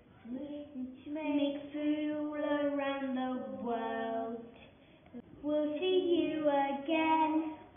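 Children singing a tune in long held notes, breaking off briefly a little past the middle.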